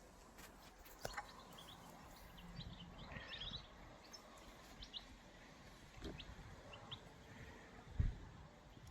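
Faint bird chirps in the background, short high calls scattered through. There is a click about a second in and a low thump near the end.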